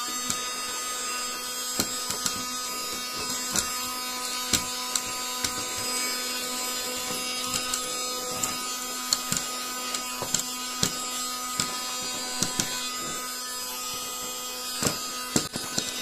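Handheld cordless vacuum cleaner, refitted with an RS385 24-volt DC motor, switching on and running with a steady whine. Irregular sharp ticks come through as bits of debris are sucked up off the floor.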